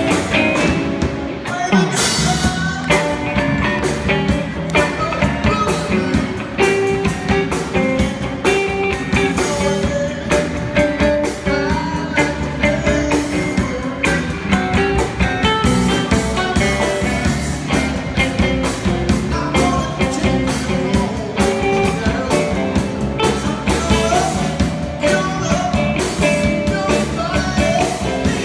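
Live rock-and-roll band playing: electric guitar, electric bass, drum kit and saxophone, with a steady drum beat.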